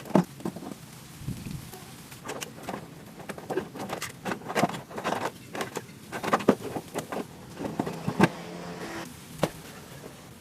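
An irregular series of sharp clicks and knocks of hard objects, several a second. The loudest come right at the start and about six and eight seconds in.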